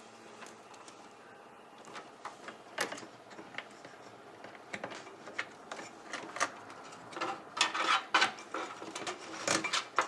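Small plastic clicks and rustles of front-panel cables being pushed onto motherboard headers and tucked inside a computer case, starting about two seconds in and growing busier in the second half.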